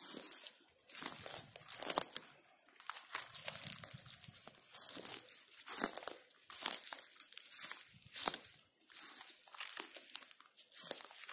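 Footsteps crunching on a dry forest floor of pine needles, twigs and lichen, in irregular crunches about once a second at a walking pace.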